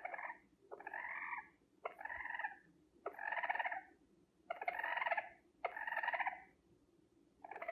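A series of short animal calls, about one every second and a bit, each starting with a sharp click and lasting well under a second, with quiet gaps between.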